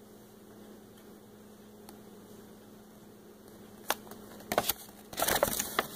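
A low steady electrical hum, then from about four seconds in a folded paper leaflet crinkles and rustles in the hand as it is turned over, with a few sharp crackles and a louder burst of crackling near the end.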